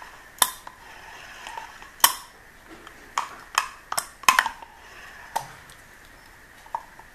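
Sharp metallic clacks from a Penn 750ss spinning reel as its bail is flipped over and snaps shut, about nine at irregular intervals.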